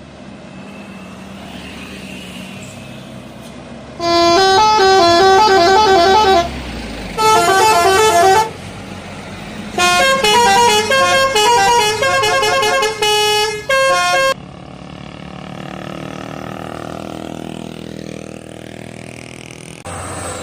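Bus telolet horn, the Indonesian multi-note musical air horn, playing fast stepping melodies in three loud bursts from about four seconds in until around fourteen seconds. Road traffic and a bus engine run before and after the bursts.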